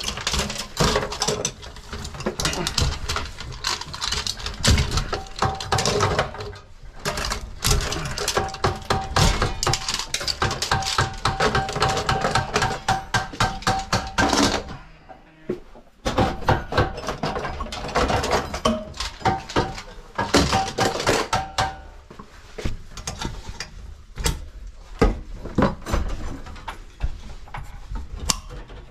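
Irregular clicking, knocking and rattling as old Federal Pacific breakers are worked loose from the panel and handled among stiff wires, with a short lull a little past halfway.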